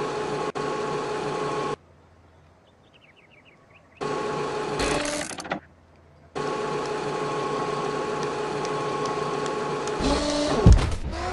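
Steady mechanical drone of an animated machine sound effect, holding a few fixed tones. It cuts off abruptly twice, once for about two seconds and once for under a second, and starts again each time.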